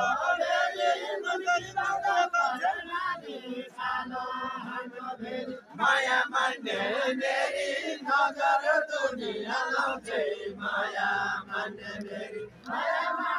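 A group of men singing a deuda folk song together in a loud, chant-like chorus, with crowd voices around them.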